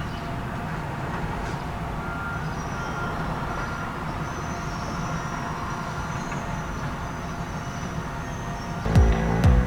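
Heavy tracked excavator's diesel engine running steadily with a low rumble, with a faint high whine over it. Music cuts in near the end.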